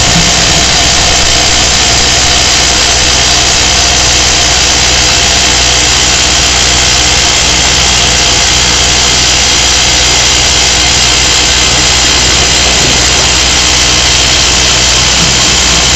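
Excavator-mounted hydraulic rock drill attachment hammering steadily into granite, a loud, unbroken rattle with the excavator's engine running under it.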